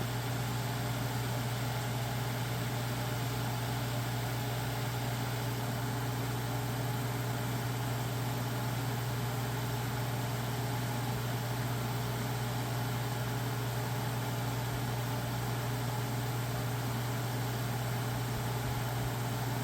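1990s Capehart 40-pint dehumidifier running with a steady, even hum, its sealed Electrohome fan motor turning freely again now that its seized front bearing has broken free.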